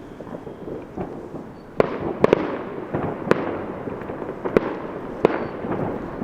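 Fireworks going off: a series of sharp bangs at uneven intervals, about one a second, over a continuous rumble. They start nearly two seconds in.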